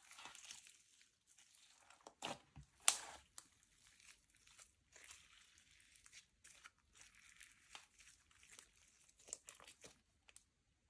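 Hands stretching and folding slime: irregular sticky crackling and small pops, with two louder snaps a couple of seconds in.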